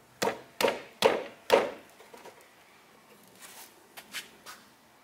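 Four sharp knocks about half a second apart as the rear wheel and tire of a Honda ATC70 are pushed and knocked onto the splined axle hub, each with a short ring, followed by a few faint clicks.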